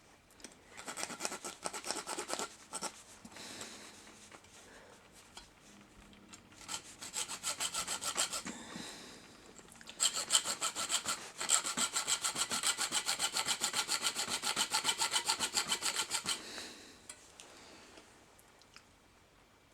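Small hand saw cutting through the metal body of a 1:64 diecast model car, in bursts of rapid short strokes with pauses between. The longest run of strokes starts about ten seconds in and lasts some six seconds.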